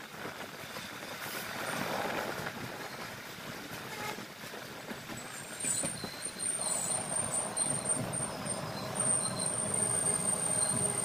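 Passenger train running and slowing, heard from a carriage doorway. About halfway through, a high, steady brake squeal sets in and grows stronger as the train draws to a stop.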